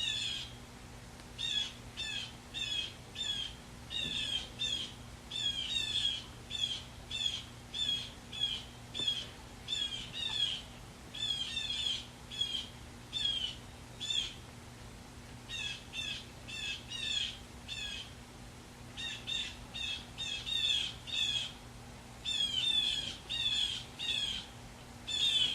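A bird calling over and over in short, high chirps, about two a second, in runs broken by brief pauses. A faint steady low hum runs underneath.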